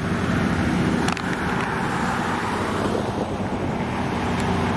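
Steady vehicle engine rumble mixed with a wash of traffic noise.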